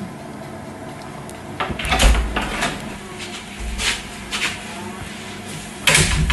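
A series of short knocks and scrapes of household things being handled, like a cupboard or drawer, with low thuds; the loudest comes near the end.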